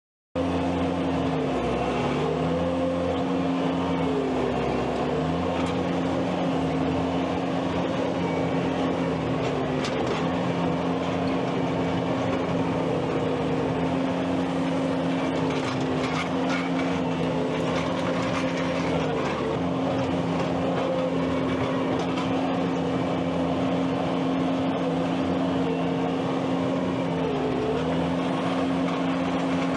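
Skid steer engine running under work. One steady drone holds while a second tone dips and recovers every few seconds as the machine takes and sheds load. The sound cuts in suddenly right at the start.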